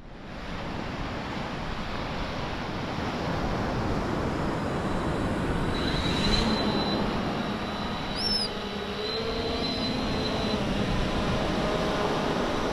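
Bait-carrying quadcopter fishing drone spinning up its rotors about six seconds in and lifting off, a steady high whine over a constant noisy rush.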